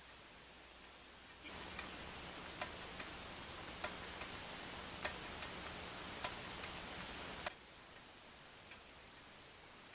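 Faint, irregular ticking clicks. A steady hiss comes in about a second and a half in and cuts off sharply about six seconds later; the clicks are louder while it lasts.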